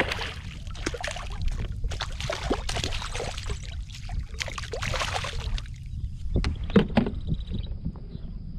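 Scattered knocks and rattles on a fishing kayak while a hooked redfish is brought alongside, over a steady low rumble of wind on the microphone.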